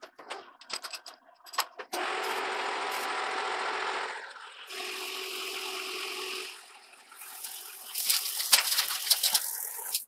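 Engine lathe turning a steel mandrel, with the tool taking a cut. After a few clicks it runs steadily in two stretches. From about seven seconds it grows louder, with rapid sharp clicks as blue chips break off the work.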